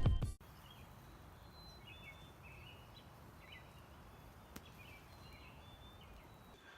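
Quiet woodland ambience with faint bird chirps and short calls over soft background hiss, after the tail of the intro music fades in the first half second. A single faint click sounds about four and a half seconds in.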